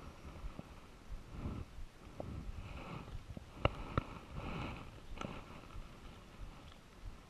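Handling noise: rustling of clothing and dry grass while fishing line is worked by hand. About halfway through come two sharp clicks, then a lighter one, as a small clear plastic bait container is picked up and its lid handled.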